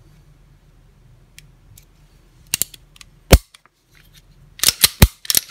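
Springfield Armory 911 .380 pistol's hammer being cocked and dropped on dry trigger pulls: one loud metallic snap a little past a third of the way in, then a quick run of sharp clicks near the end. These clicks are a check of whether the hammer falls after a quarter-turn adjustment of the Crusader trigger's over-travel screw.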